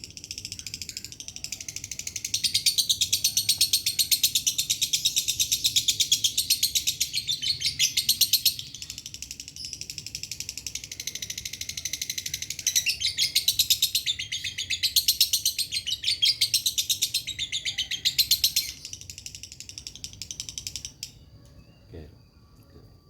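Lovebird singing one long, very rapid chattering trill of the dry 'kering' voice type. It swells louder twice and stops about 21 seconds in.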